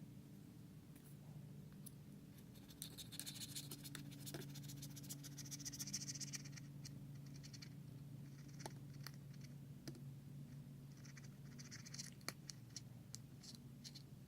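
Faint scratching and picking of a tool working at leftover adhesive on an iPad Air's frame, in two spells of fine rapid scratches, with a steady low hum underneath.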